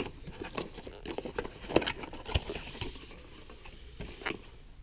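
Cardboard box and paper inserts being handled and searched through: scattered light taps, scrapes and rustles, with one sharper tap a little before halfway.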